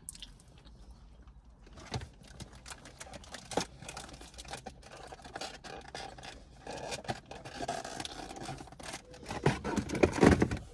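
Close-up eating sounds: cookies being bitten and chewed, with a paper sandwich wrapper crinkling and rustling in many small clicks and scrapes that grow louder near the end.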